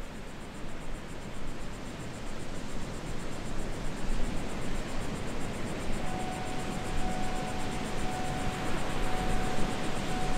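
Steady rushing outdoor ambience. A single steady high tone comes in about six seconds in and holds.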